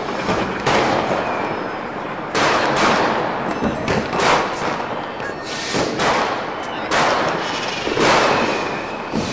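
Fireworks display going off: sudden bangs about once a second, each trailing into a long echoing rumble, over continuous crackling.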